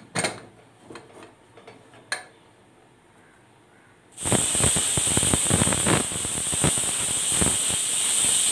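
Pressure cooker whistling: after a couple of faint clicks, the weight lifts about four seconds in and steam blasts out in a loud, steady, sputtering hiss that lasts over four seconds. The whistle means the cooker has reached pressure; the beef is being cooked through several such whistles.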